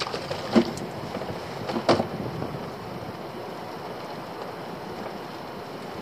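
Wind buffeting the microphone over the steady wash of sea around a small open fishing boat, with two sharp knocks about half a second and two seconds in as the stacked lobster pots are handled.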